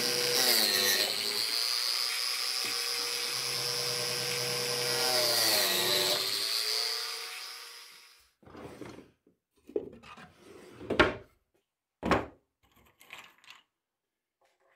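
Biscuit joiner motor running, its pitch dipping twice as the blade plunges into the wood to cut biscuit slots. About seven seconds in it is switched off and spins down, followed by a few knocks of the tool and wood being handled, the loudest about eleven seconds in.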